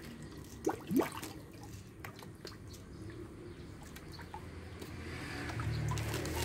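Small water plops and drips at a fish pond's surface as tilapia rise to take floating feed, with two louder rising plops about a second in, then scattered faint ticks.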